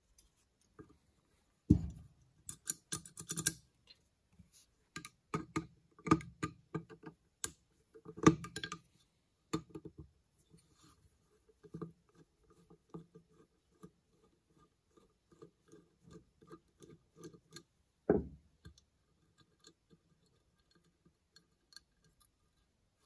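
Metal clicks and taps of a screwdriver and small parts worked in and against a cast metal carburetor body being taken apart by hand, at first in a dense cluster, then as a run of quick faint ticks. One sharper knock comes about three-quarters of the way through.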